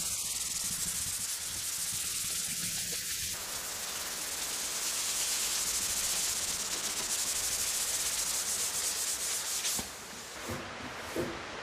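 Hand sanding of dried body stopper on a car's body panels with abrasive paper on a foam contour pad: a steady scratching hiss of paper rubbing over filler. It stops about ten seconds in, followed by two light knocks.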